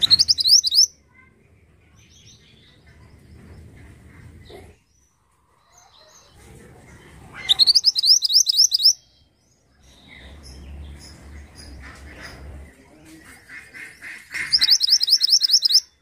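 Male minivet (mantenan) singing three bursts of a fast, high trill of repeated rising notes: one near the start, one about halfway through, and one near the end. Between the bursts are faint scattered chirps and a soft low rumble.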